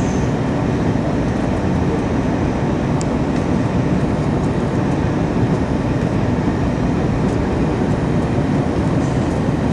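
Steady low rumble inside the passenger cabin of an Airbus A321-231: the noise of its IAE V2533-A5 turbofans and airflow over the fuselage, holding even throughout.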